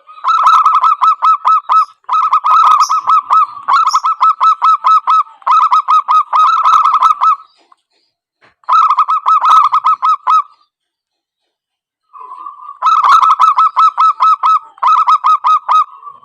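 Zebra doves (perkutut) calling in rapid staccato runs of cooing notes, about six a second. The runs come in bursts of about two seconds, with two short pauses in the latter half.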